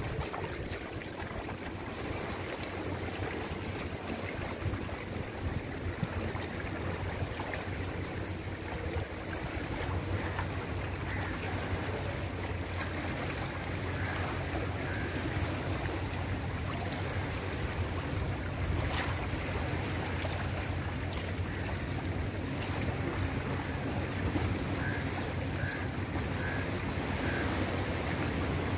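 Small waves washing in shallow sea water with wind on the microphone, over a steady low hum. A thin steady high whine joins about halfway through, with a few faint chirps and a single sharp click.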